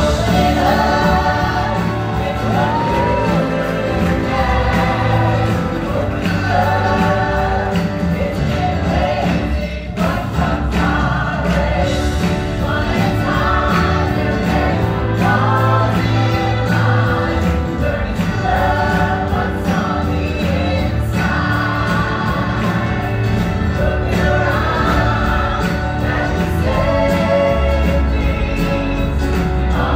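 Musical-theatre cast singing together in chorus over band accompaniment: the stage show's ensemble finale number.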